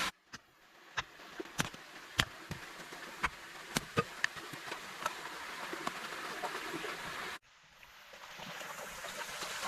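Scattered sharp clicks and knocks, irregular and a few each second, over a faint steady hiss. The sound cuts out abruptly twice.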